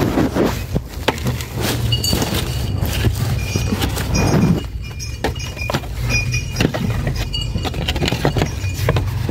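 Rustling and light knocks of hands handling vegetable plants and cut plastic-bottle planters, over a steady low hum, with short high chirps now and then.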